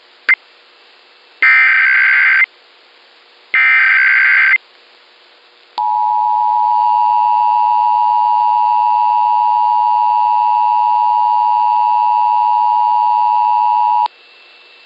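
Emergency Alert System broadcast alert opening a national test: after a click, two roughly one-second bursts of SAME header data, then the EAS two-tone attention signal (853 and 960 Hz together) held steady for about eight seconds before cutting off sharply.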